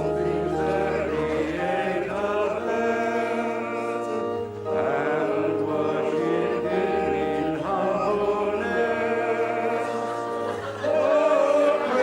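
Choir singing a hymn in long held notes over a steady low accompaniment, growing louder near the end.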